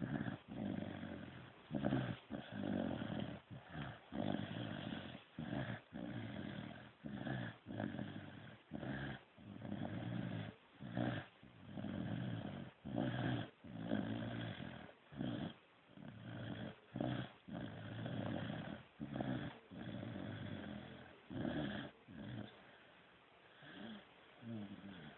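Snoring: one noisy snore after another, about once a second, some drawn out longer than others. The snores die down for a couple of seconds near the end, then start again.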